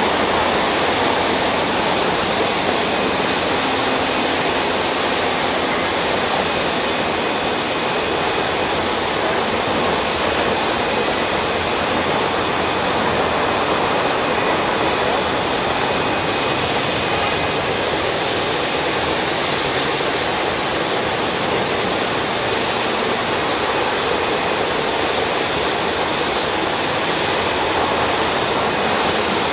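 Jet engines of a four-engined Airbus A340-600 (Rolls-Royce Trent 500 turbofans) running at taxi power: a steady, loud rush with a high, even whine over it.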